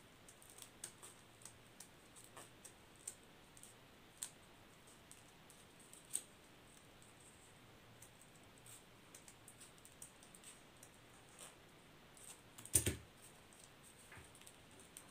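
Small scissors snipping through folded paper: faint, irregular clicks of the blades closing, with one louder knock near the end.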